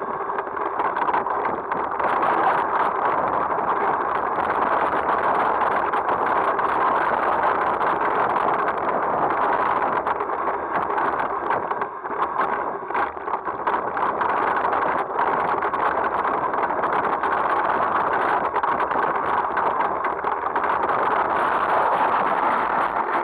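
Mountain bike running fast down a rough dirt trail: a steady rush of wind over the onboard camera's microphone, with the bike's rattle and many small knocks from bumps in the ground.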